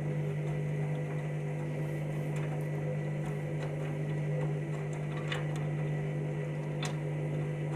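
Washing machine running in its drawn-out start-up phase with an overloaded, very absorbent load: a steady low hum with a few light scattered clicks.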